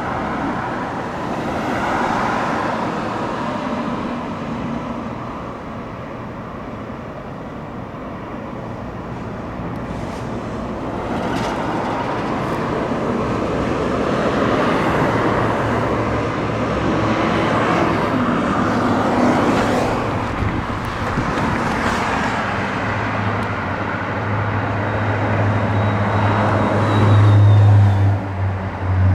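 Road traffic passing: car engines and tyre noise rising and falling as vehicles go by, with a low engine hum growing loud near the end.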